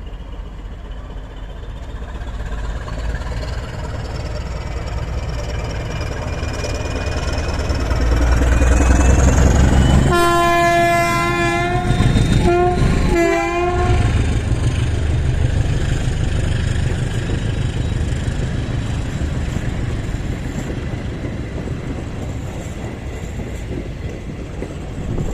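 A train approaches and passes, its running rumble building with a high whine rising in pitch. As it draws near, the driver sounds the horn in greeting: one long blast of about two seconds followed by two short ones. The rumble then slowly fades as the train goes by.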